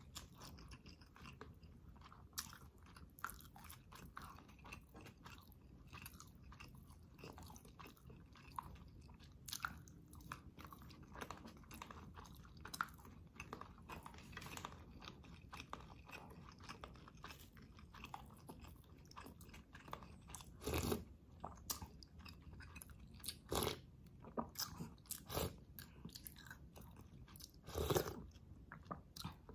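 Close-miked chewing and mouth sounds of a person eating catfish, shrimp and rice in tamarind soup, with many small wet smacks and clicks and a few louder ones in the second half.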